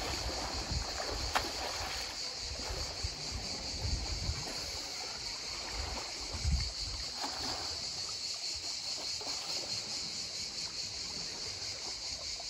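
Calm sea water lapping and washing among shoreline rocks, with wind rumbling on the microphone and a steady high insect buzz behind it. A short click comes about a second and a half in and a low thump near the middle.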